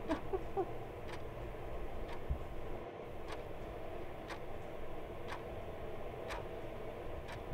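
An even ticking, one tick about every second, over a low steady room hum.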